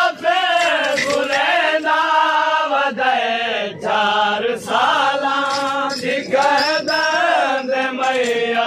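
Men's voices chanting a Muharram noha lament, a sung melody with held, wavering notes that carries on without a break.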